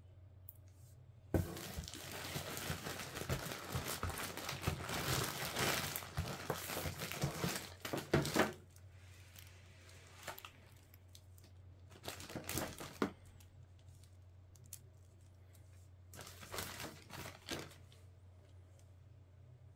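Crinkly packaging being handled and pulled apart: a long stretch of crinkling and rustling lasting several seconds, then three shorter bursts.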